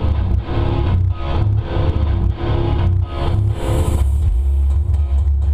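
Music with guitar and a strong deep bass, playing to an even beat; about three and a half seconds in the chords drop away and mostly the deep bass goes on.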